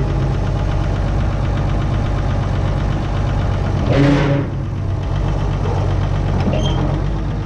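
An engine idling steadily, with a brief louder rush of noise about four seconds in.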